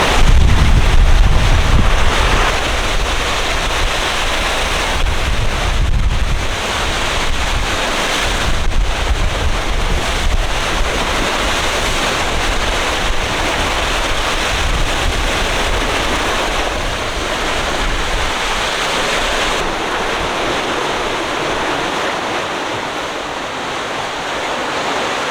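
Sea water rushing along a sailing yacht's hull at about 8 knots in steep waves, with strong wind buffeting the microphone. The low buffeting is heaviest in the first several seconds.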